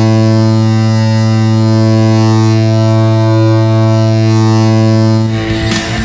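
Seattle Kraken arena goal horn sounding one long, steady low blast. It cuts off a little after five seconds in as a rock goal song with drums starts.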